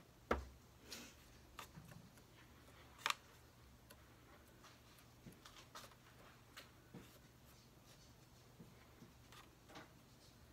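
Quiet tabletop handling: scattered faint clicks and light taps from a paintbrush working on a vinyl LP record. Two sharper taps stand out, about a third of a second in and about three seconds in.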